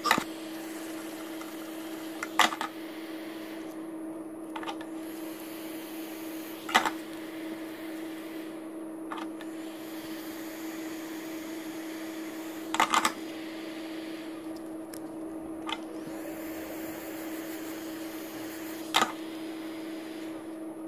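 Hot-air blower running with a steady hum and rush of air, heating a phone's glued-on screen. A few sharp knocks, about five, come from the phone and card being handled.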